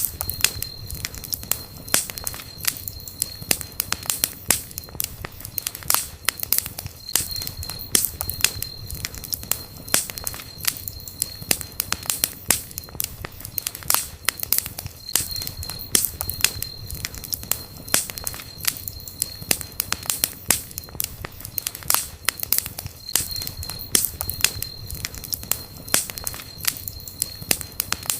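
Wood campfire burning, crackling with frequent sharp pops over a low rumble of the flames. A thin high whistle comes and goes every few seconds.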